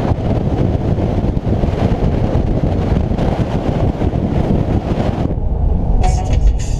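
Wind rushing over a camera held out the window of a moving camper van, mixed with road and engine noise. About five seconds in it cuts off, and music starts near the end.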